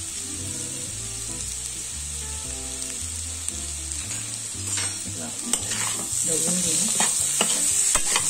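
Potato and sweet potato cubes sizzling in oil in a kadhai. A spatula starts stirring and scraping against the pan about five seconds in, and the sizzle grows louder about a second later.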